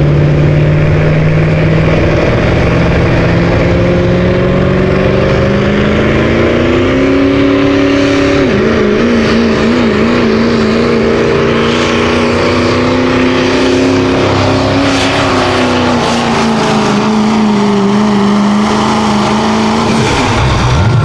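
Chevrolet Silverado's Duramax diesel V8 at full throttle, dragging a weight-transfer pulling sled. The engine pitch climbs for the first eight seconds, then drops and wavers as the sled's load builds. It holds steady, then sags, and the engine note cuts off about twenty seconds in as the truck stops.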